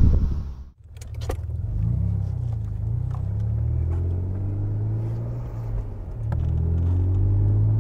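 Vauxhall Cavalier GSi 4x4's 3.0 litre 24-valve V6 running on the road under light, steady load, its note rising and falling a little. The sound cuts out briefly just under a second in.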